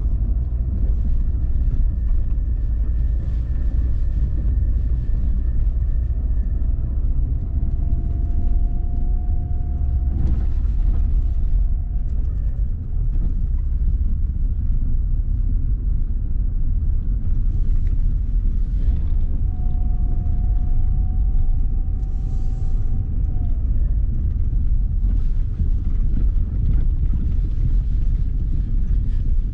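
Lada Vesta driving slowly over a rough road, heard from inside the cabin: a steady low rumble of tyres and suspension with faint light knocks and rattles, and a faint whine that comes and goes twice. No distinct suspension knock stands out while the new struts are being checked for it.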